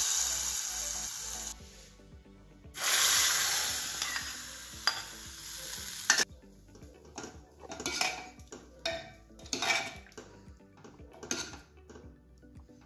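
A hot ghee tadka of cumin seeds sizzles as it is poured onto cooked moong dal, in two hissing bursts over the first six seconds. Then a steel ladle scrapes and clinks against the steel pot as the tempering is stirred in.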